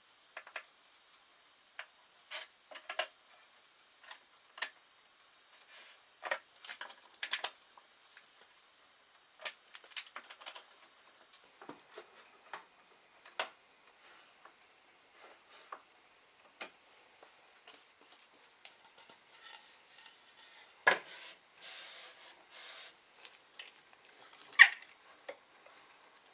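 Hand-handling sounds in a workshop: scattered light clicks and knocks with some rubbing, as of wooden and metal parts being set down and moved, and two sharper knocks near the end.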